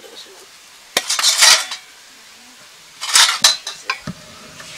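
Stainless steel lid being worked off a small steel container on a steel plate: metal scraping and clinking in two loud bursts, about a second in and again about three seconds in.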